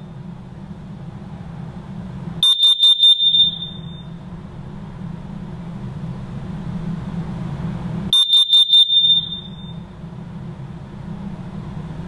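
Interlogix carbon monoxide alarm sounding its test alarm: two groups of four quick, high-pitched beeps about six seconds apart. This four-beep pattern is the one it uses to warn of carbon monoxide.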